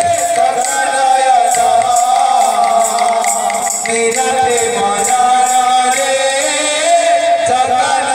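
Devotional kirtan: a male voice sings a long, wavering melody line, with hand cymbals struck in a steady rhythm behind it.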